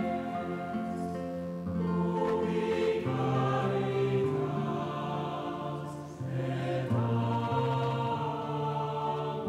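A choir singing slow, held notes, with new phrases starting about two seconds in and again past the six-second mark.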